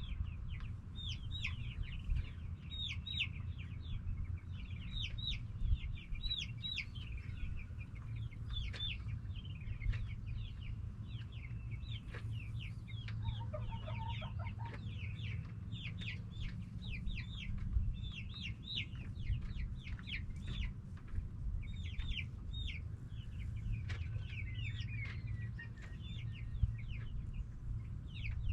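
Backyard chicken flock clucking and calling, with many short, high, downward-sliding calls overlapping almost without pause. A steady low hum runs underneath, and a lower-pitched call stands out briefly around the middle.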